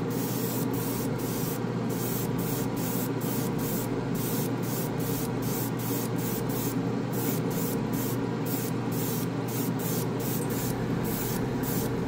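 Airbrush spraying paint in short, rapid pulses of hiss, about three a second, as the trigger is worked, over a steady low hum.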